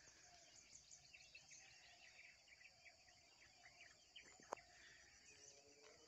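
Faint outdoor countryside ambience: many small birds chirping in scattered short notes over a steady high hiss, with a single sharp click about four and a half seconds in.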